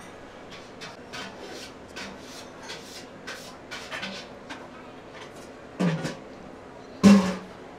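A plastic spoon stirring and scraping through a bowl of thick vermicelli soup, a run of short soft scrapes, with two louder sudden sounds near the end.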